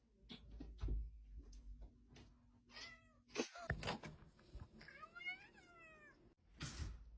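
Cat meowing: a short meow about three seconds in, then a longer meow that rises and falls about five seconds in, with a few soft knocks and a rustle among them.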